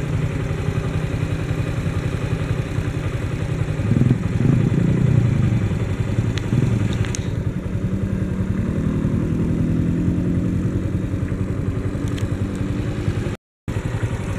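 Motorcycle engine running steadily at idle, with a second engine note slowly rising in pitch from about eight seconds in. The sound drops out for a moment near the end.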